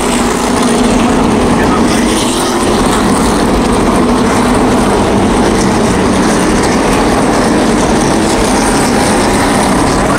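A pack of NASCAR Cup Series stock cars passing the grandstand, their V8 engines running together in a loud, steady drone.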